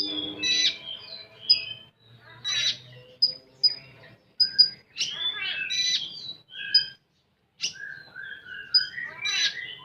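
Olive-backed sunbird (konin) singing a rapid, varied song of high chips, quick trills and short whistled notes, with a brief break about seven seconds in.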